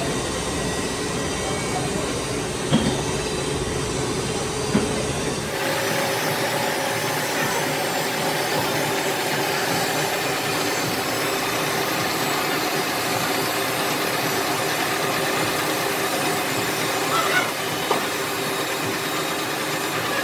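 Metal lathe running and facing a steel gear blank: a steady machine drone with cutting noise. Two short knocks come in the first few seconds, and the sound changes abruptly about five seconds in, after which a steady hum carries on.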